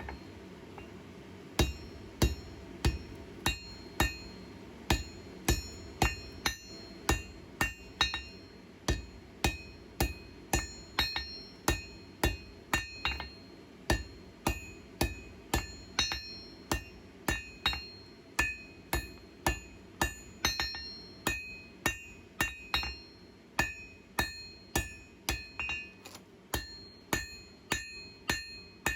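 Hand hammer striking hot steel on an anvil in steady blows, about one and a half a second, each with a short metallic ring: a small skinner knife blade being forged out. A steady low hum runs underneath.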